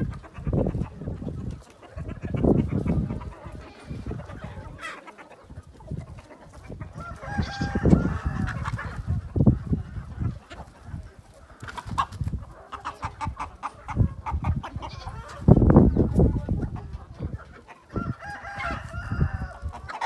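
A flock of free-range chickens clucking, with a rooster crowing about eight seconds in and again near the end. Several bursts of low rumble come and go, the loudest a little after the middle.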